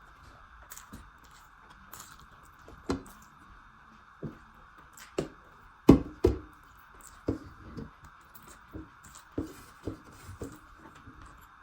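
Close-up eating sounds: irregular wet clicks and smacks of chewing and of rice and chicken being handled on a plate, the loudest a pair of sharp clicks about six seconds in, over a steady faint hiss.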